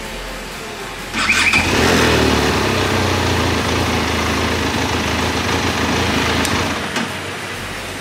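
Benelli TRK 502's parallel-twin engine cranked and starting about a second in, then running steadily before cutting off abruptly with a click about seven seconds in.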